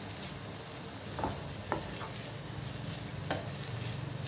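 Grated potato sizzling steadily in a little oil in a coated frying pan while a wooden spatula stirs and scrapes it through, with three sharp taps of the spatula on the pan, about a second in, just after, and past three seconds.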